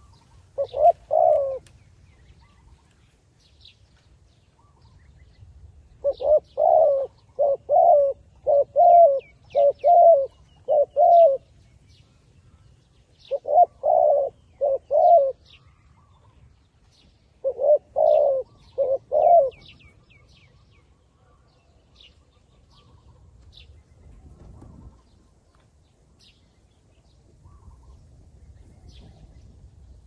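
Spotted dove cooing in runs of short coos with pauses between: one near the start, a run of six from about six seconds, then two runs of three, and no coos in the last ten seconds. Small birds chirp faintly in high thin notes throughout.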